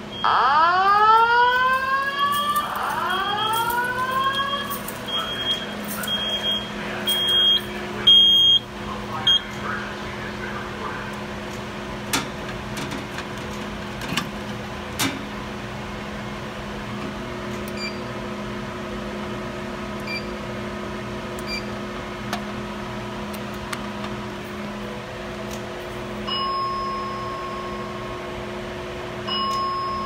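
Simplex fire alarm voice-evacuation speakers sounding the evacuation whoop tone, two rising whoops with a high intermittent beep over them, which cut off about nine seconds in as the alarm is silenced. After that comes the steady hum of the building's ventilation, with a short tone near the end.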